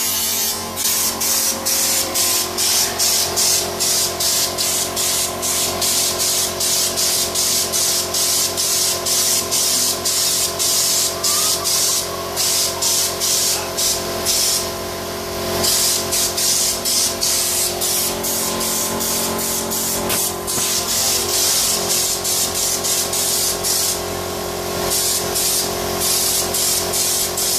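Air-powered bedliner applicator gun spraying U-Pol Raptor bedliner: a hiss of compressed air chopped into quick pulses about three times a second, with a few longer unbroken sprays. A steady hum sits underneath.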